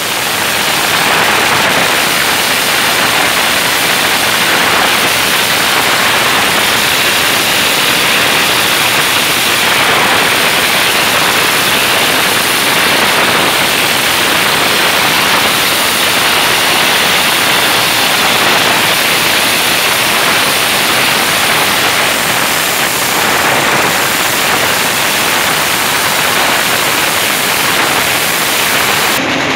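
Massed firecrackers going off in a dense, continuous crackle, so many bangs close together that they merge into one steady, loud rattling din.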